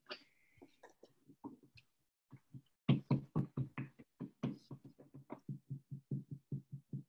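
Stencil brush dabbing acrylic paint through a plastic stencil onto paper on a table. It makes a fast run of soft taps, sparse at first, then about four to five a second.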